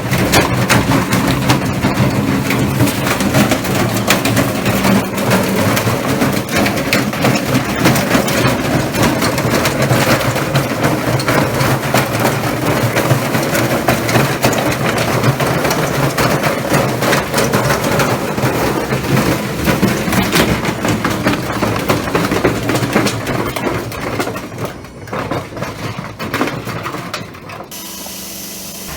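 Washing machine running with heavy objects loaded in its drum: a steady motor hum under continuous loud banging and rattling, which eases off near the end.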